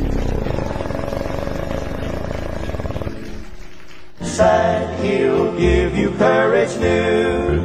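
A bass singer holds a very low vocal fry note, captioned as A0, that rattles under the group's chord and fades out about three seconds in. About a second later a male gospel vocal group starts singing in close harmony.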